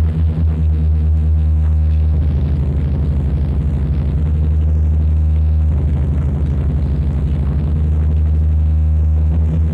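Power electronics noise music: a loud, low electronic drone that throbs in rapid pulses. Its texture shifts about two seconds in and again just past the middle.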